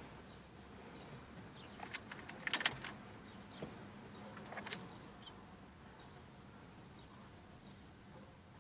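A few faint clicks and knocks over a quiet background: a cluster about two and a half seconds in and one more near five seconds.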